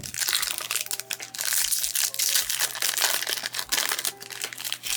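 Foil Pokémon booster pack wrapper crinkling and crackling as it is torn open and handled, a continuous dense crackle with sharp snaps throughout.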